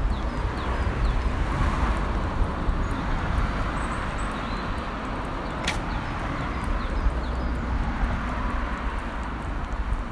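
Road traffic noise beside a busy street: a steady rumble and hiss of passing cars, with many small high ticks running through it and one sharp click about halfway.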